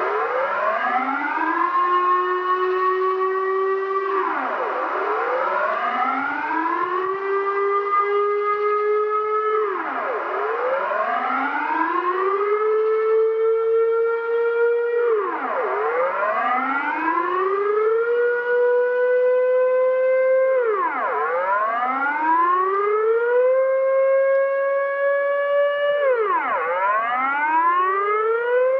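Civil-defence air-raid siren wailing: its chord-like tone rises, levels off and then drops sharply, over and over about every five and a half seconds, each peak climbing a little higher than the last.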